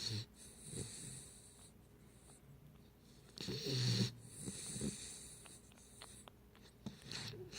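Pit bull puppy snoring in its sleep: a series of hissy breaths, the loudest a low pitched snore lasting under a second about three and a half seconds in.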